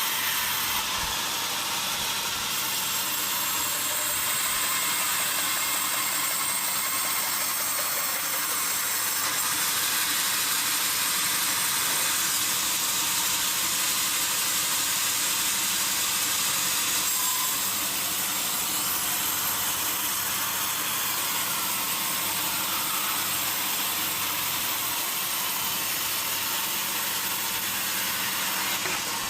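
Sawmill saw machinery running steadily on a teak log, a continuous high hiss over a low hum, a little louder for several seconds in the middle.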